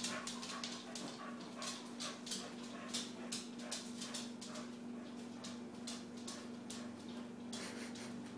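Schnauzer puppy panting and whimpering in short, irregular bursts, over a steady low hum.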